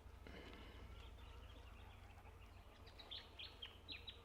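Faint birdsong: a soft high warble, then a quick run of short chirps in the last second or so.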